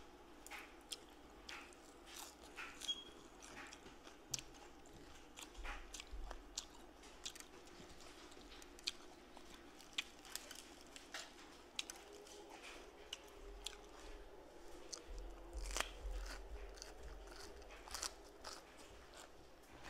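A person chewing and biting food close to the microphone, with irregular crunches and clicks several times a second.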